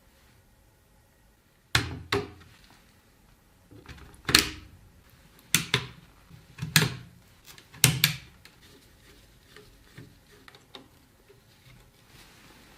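Sharp clacks and knocks of hard computer parts being handled and fitted, about eight in all, several in quick pairs, over a few seconds.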